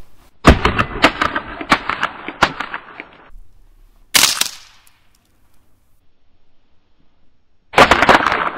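Sledgehammer blow onto a heap of snappers (bang snaps), setting off a rapid crackle of many small pops that lasts about three seconds. A short, sharp crack comes about four seconds in. Near the end a second blow sets off another dense crackle of pops.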